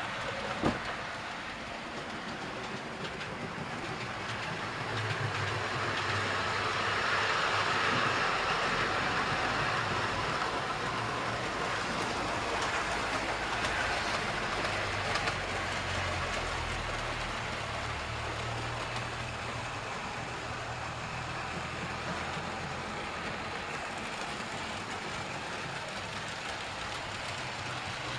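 A 00 gauge model steam locomotive and its goods wagons running on the track, a steady rattling rush of wheels and motor. It grows louder as the train comes closest, about a quarter of the way in, then slowly eases off. There is one sharp click just under a second in.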